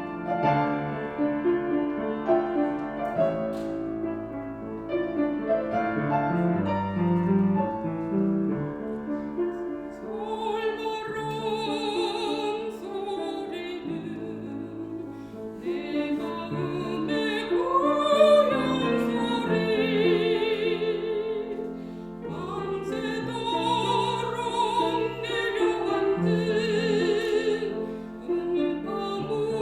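A Korean art song for soprano and piano. The piano plays alone at first, then, about a third of the way in, a soprano enters singing with a wide vibrato over the piano accompaniment.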